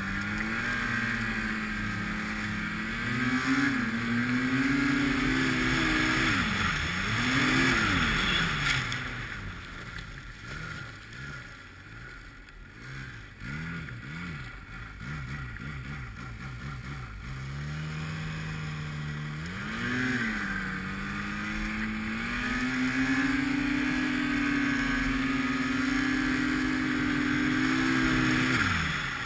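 Arctic Cat snowmobile engine working hard through deep powder, the revs rising and falling with quick throttle blips over the first several seconds. About a third of the way in it eases off and goes quieter for several seconds, then winds back up, holds steady at high revs and drops away near the end, with a steady hiss of track and snow under it.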